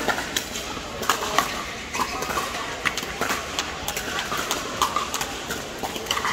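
Pickleball paddles striking plastic balls: irregular sharp pops from the surrounding courts, echoing in a large indoor hall.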